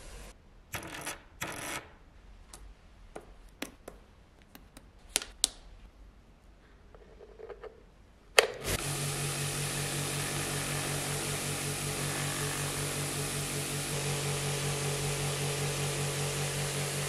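Scattered light clicks and rustles, then a sharp click about halfway through as a vibratory tumbler loaded with aluminium oxide media switches on, followed by its steady motor hum with the media churning.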